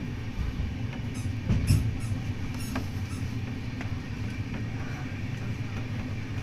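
Train running on its rails: a steady low rumble with a few faint high clicks or squeaks, and a louder knock about a second and a half in.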